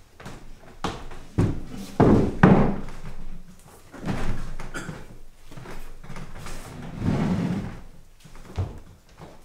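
Irregular knocks, thumps and scraping of furniture or set pieces being moved on a darkened theatre stage, the loudest two thumps about two seconds in, with longer scraping stretches around four and seven seconds.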